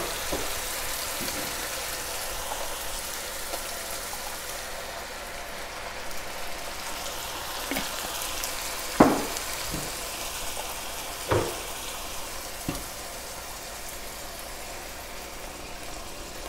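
Browned ground veal and Italian sausage sizzling in a stainless steel pot as jarred tomato sauce is poured over it; the sizzle dims after about five seconds. A few sharp knocks sound against the pot in the second half.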